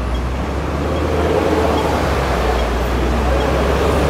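Steady outdoor background noise: a low rumble with a rushing hiss over it, the rumble stopping right at the end.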